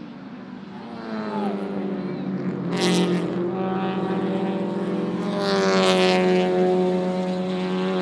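Touring race cars, among them a Toyota 86 coupe and a Honda Civic hatchback, passing one after another through a corner, their engines under load as they accelerate out of it. The sound builds, with the loudest passes about three and six seconds in and a sharp crackle at the first of them.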